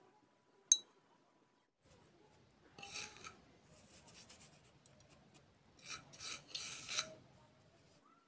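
A single sharp clink just under a second in, then short bursts of scraping and rubbing about three seconds in and again near the end, from fingers and a spoon handling food on a metal plate.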